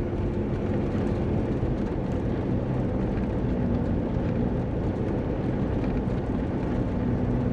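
Steady engine and road noise of a vehicle being driven, a low even drone with a faint hum.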